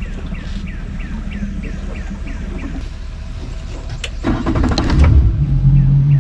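Boat outboard motor cranked over about four seconds in, catching right away and settling into a steady idle.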